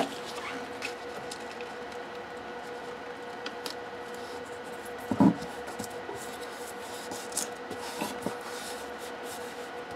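Hands pressing and rubbing a sticker flat onto a painted plywood board, with a soft knock against the board about five seconds in and a few light taps, over a faint steady hum.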